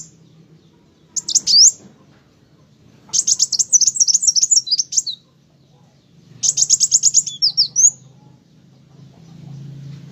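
Kolibri wulung sunbird singing: three bouts of rapid, high-pitched chattering notes with quick rising and falling sweeps, separated by short pauses. A faint low hum sits underneath.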